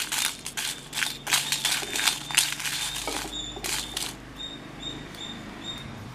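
A wooden spatula scrapes and turns whole dried red chillies in a hot kadai while they roast, making a series of short, scratchy, rustling strokes. The strokes thin out and grow quieter after about four seconds.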